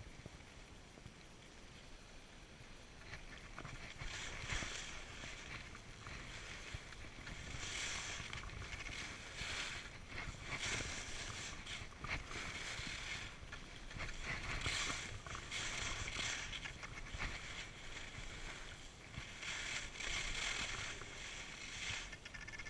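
Skis carving and scraping over packed snow through a run of turns: a swishing hiss that swells and fades every second or two.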